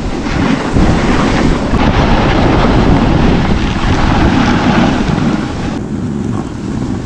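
Wind rushing over the microphone of a camera moving fast down a ski slope, mixed with the scraping hiss of sliding over packed snow. The high hiss thins out about six seconds in, leaving mostly low wind rumble.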